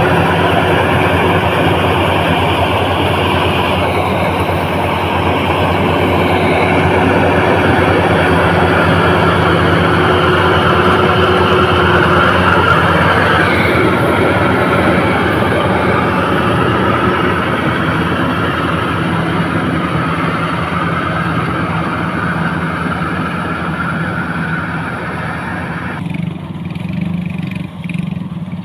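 An engine runs steadily and loudly with a low hum. About 26 seconds in, the higher part of the sound drops away while the low hum carries on.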